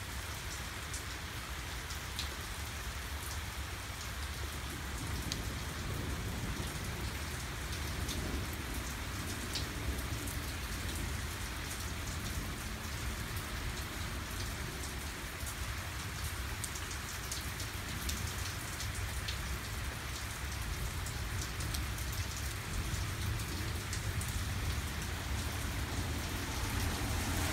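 Heavy rain falling steadily, a dense hiss of rain on wet surfaces with scattered sharp ticks of single drops striking close by.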